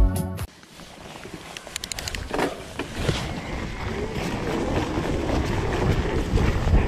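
Intro music cuts off about half a second in, then mountain-bike riding noise: wind buffeting the camera microphone and a rough tyre-and-trail rumble that slowly builds, with a few sharp clicks and knocks from the bike.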